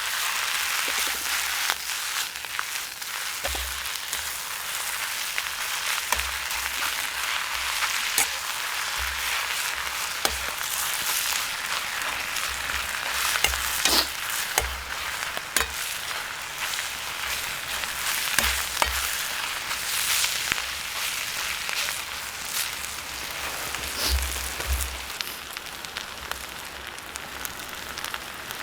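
Food sizzling in a carbon-steel wok over a campfire: a steady frying hiss with sharp pops and clicks here and there.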